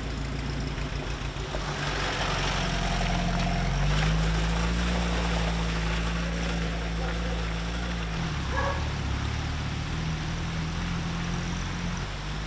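UAZ-469 off-roader's engine running as it drives along a rough dirt track, its note changing about four seconds in and again about eight seconds in.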